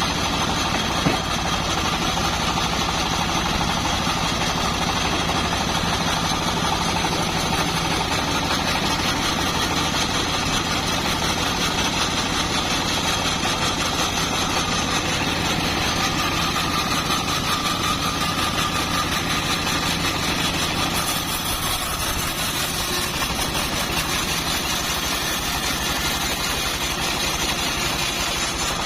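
Engine-driven homemade bandsaw mill running steadily, with a single short knock about a second in.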